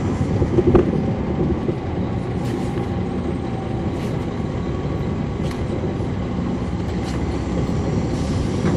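Caterpillar C13 ACERT diesel engine of a NABI 40-SFW transit bus running steadily, heard from the rear floor of the cabin, with a short sharp click about a second in and a few faint clicks after it.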